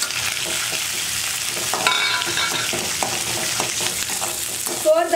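Chopped shallots, dried red chillies and curry leaves sizzling steadily in hot oil in a kadai while a spatula stirs and scrapes them round the pan: the tempering (thalippu) for lemon rice.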